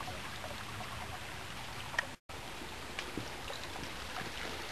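Steady hiss with scattered light clicks and rustles of hikers moving through undergrowth on a forest trail. The sound cuts out for a moment about two seconds in.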